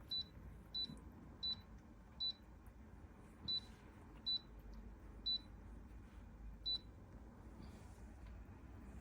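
Eight short, high electronic beeps at irregular intervals of roughly a second, all at the same pitch, over a faint background hiss: typical of a humidifier's touch control panel acknowledging button presses.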